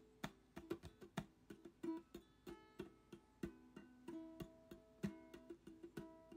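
Quiet background music of plucked acoustic guitar or ukulele notes in a light, bouncy melody.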